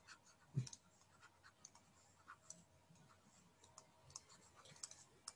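Faint, scattered taps and scratches of a stylus writing on a drawing tablet, irregular short clicks with a few more near the end.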